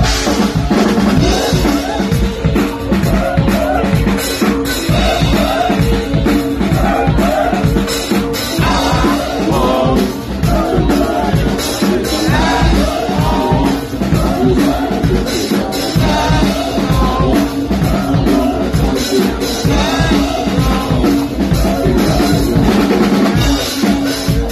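Live nu-metal band playing loud: fast, dense drumming on a full drum kit with heavy bass guitar underneath.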